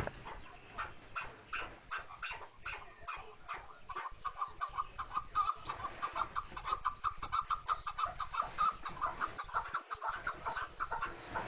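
Chukar partridge calling: a long run of short, rapidly repeated notes, several a second, that becomes faster and steadier from about four seconds in.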